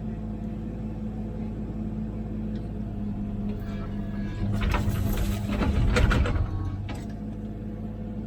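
Komatsu PC16 mini excavator's diesel engine running steadily. Its note rises for a couple of seconds in the middle as the hydraulics are worked, with some clattering, then settles back.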